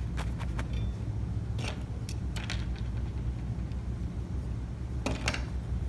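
Handling noises at a wooden workbench: leather work gloves and plastic safety glasses being moved and set down, a scatter of short clicks and rustles, the loudest cluster near the end. A steady low hum lies under them.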